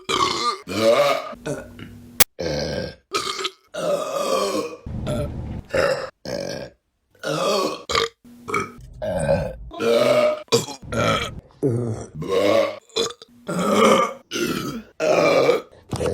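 Women burping, one clip after another: more than a dozen separate belches in quick succession, each a short, rough, pitched burp, with brief gaps and abrupt cuts between them.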